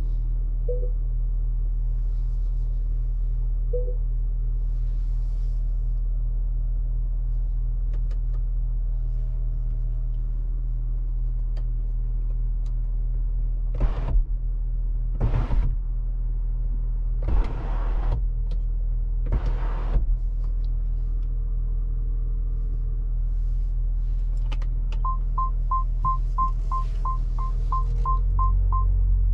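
Haval H6-GT's 2.0-litre four-cylinder engine running with a steady low hum, heard inside the cabin. Midway come four short hisses. Near the end the parking sensors beep quickly, about three beeps a second, as the car begins to move.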